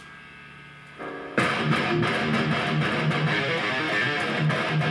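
Electric guitar played through a Marshall amplifier stack: a low amp hum, a single chord about a second in, then fast, loud riffing with a heavy rhythmic low end from about a second and a half in.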